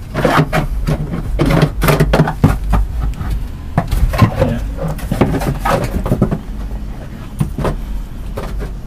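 Handling noise: fabric brushing against the microphone and irregular knocks and clatter as parts in a boat's engine compartment are moved, over a steady low rumble.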